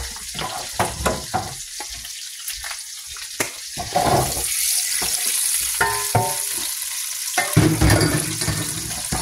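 Hot fat sizzling steadily under a run of knocks and clatter as raw potato cubes are shaken out of a pan into a deep fryer's wire basket, with the heaviest tumble of potatoes against the metal basket near the end.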